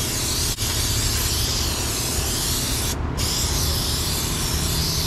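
Aerosol brake cleaner spraying steadily through a straw nozzle onto the inside of a greasy brake drum, washing out embedded grease. The spray breaks off for a moment about three seconds in.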